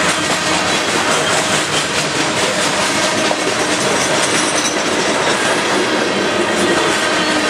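Loaded covered hopper grain cars of a freight train rolling past close by: a steady, loud rumble of steel wheels on the rails, with clicking as the wheels cross rail joints.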